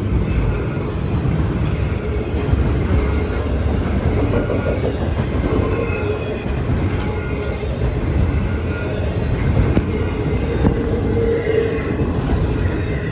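Freight train cars of a long intermodal train rolling past, a steady heavy rumble of steel wheels on rail with clickety-clack and faint, wavering wheel squeal.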